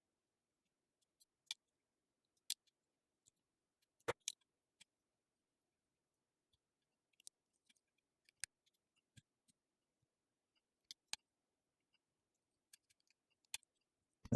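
Lock pick working inside a pin-tumbler lock: scattered soft clicks and taps, about one every second, irregularly spaced, with near silence between.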